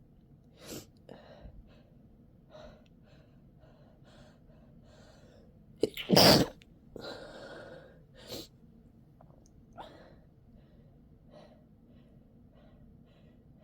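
A person with a cold gives one loud sneeze about six seconds in, amid short sniffs and gasping breaths, and a breathy exhale follows it. The sneeze is induced to relieve an itchy, tickly nose.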